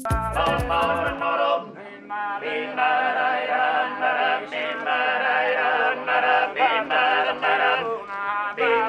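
Sardinian canto a tenore: four men singing unaccompanied in close harmony, a lead voice over the other voices' sustained chord. The singing dips briefly a couple of seconds in, then the full chord comes back.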